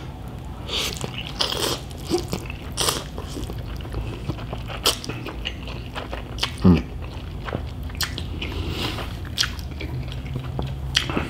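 Close-miked slurping and wet chewing of cold Korean bibim noodles, with repeated short sucking slurps as strands are drawn into the mouth. One brief voiced sound from the eater comes a little past the middle.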